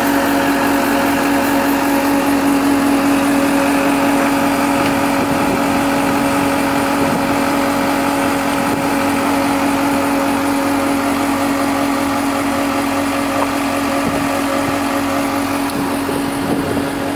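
Komatsu PC160LC excavator's diesel engine idling steadily, a constant loud hum with an unchanging tone.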